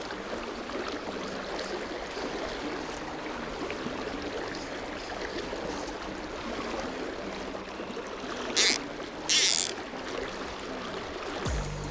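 Mountain creek water flowing steadily. Two short, loud hissing sounds come about two-thirds of the way through.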